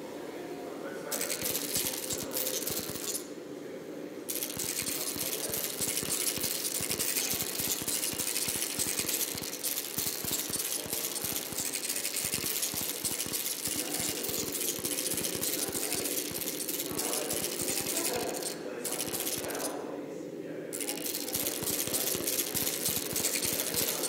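Glitchy electronic noise soundtrack of an audio-visual installation: dense crackling and rapid clicking over a low droning hum, with the hiss cutting out briefly twice.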